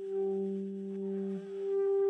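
Saxophone holding a long, steady note, with a second, lower tone sounding beneath it that drops out about one and a half seconds in, leaving the upper note alone.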